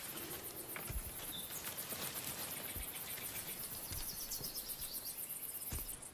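Outdoor ambience of insects trilling steadily in a rapid, high-pitched pulse, with a few short bird chirps and a few soft knocks.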